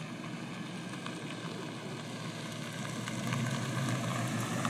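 A 1969 Chevrolet Chevelle's engine runs at low speed as the car rolls closer, a steady low hum that grows louder over the last second or so.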